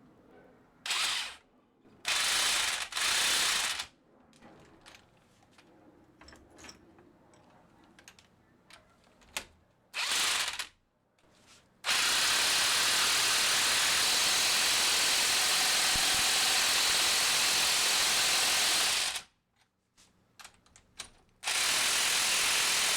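A power tool driving the threaded rods of strut spring compressor clamps, compressing the coil spring of a McPherson strut. It runs in several short spurts, stops, then runs steadily for about seven seconds and starts again near the end, with faint clicks of handling in between.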